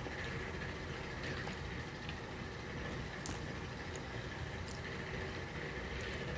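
Steady low background hum, with a few faint clicks of a metal fork touching a glass plate as a bite of cheesecake is cut, the clearest about three seconds in and another near five seconds.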